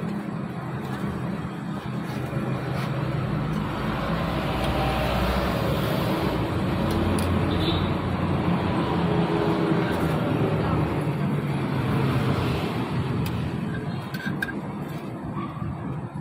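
Street traffic: the engine noise of passing vehicles swells to its loudest in the middle and eases off near the end.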